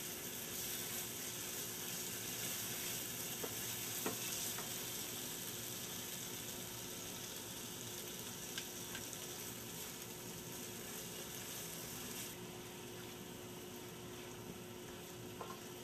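Spice paste sizzling in hot oil in a frying pan as spoonfuls of yogurt are stirred in, with a few light taps of the spoon against the pan. The sizzle softens about twelve seconds in.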